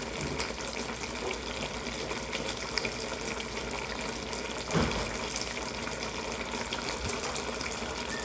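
Sugar syrup bubbling and sizzling around pecans in a pot over the burner: a steady hiss with fine crackles. A single low bump comes about five seconds in.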